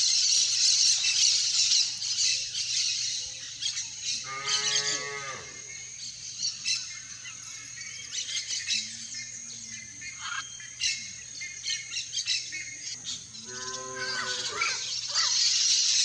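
Cattle lowing: two long, low moos, one about four seconds in and one near the end, each falling in pitch. A steady high-pitched drone runs underneath and is loudest at the start and end.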